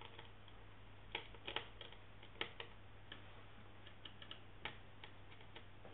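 Faint, irregular small clicks and taps of fingers handling an SD card and small plastic parts inside an opened EXOPC tablet PC, over a steady low hum.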